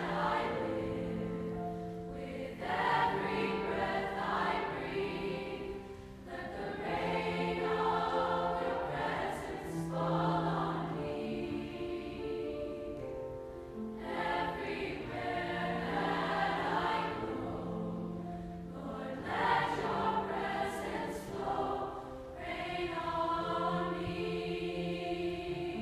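Mixed youth choir singing a sacred song in several parts with grand piano accompaniment, in phrases separated by short breaths.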